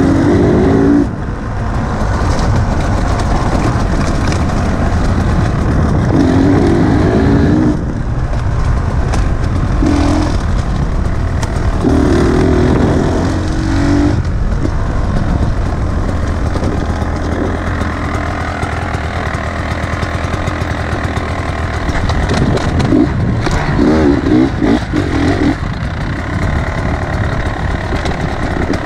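Beta 300 two-stroke single-cylinder enduro bike engine running under load while ridden over a dirt track. The pitch rises in several short bursts of throttle along the way.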